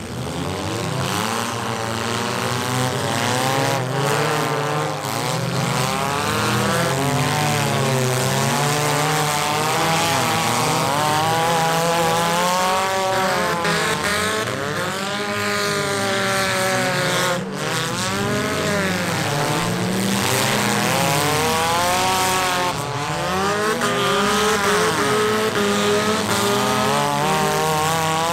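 Several demolition derby cars' engines revving together, their pitches rising and falling as the cars accelerate and back off.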